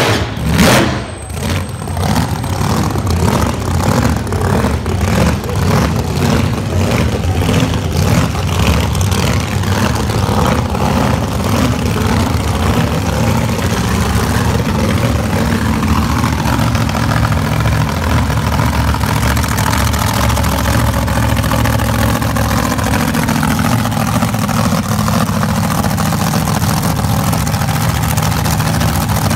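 Drag-racing hot rod engine coming off the revs about a second in after a burnout, then idling with an uneven, loping beat.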